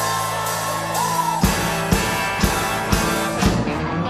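Live rock-and-roll band of guitar, keyboards, bass and drums holding a chord, then about a second and a half in the drums strike about twice a second as the band moves into the next song.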